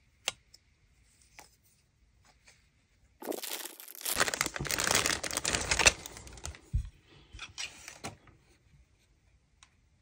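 Plastic packaging bag crinkling and rustling as it is handled, running for about five seconds from about 3 s in, after a few light clicks.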